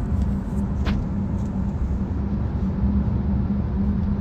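Steady low rumble of a moving car heard from inside the cabin: engine and road noise, with one brief click about a second in.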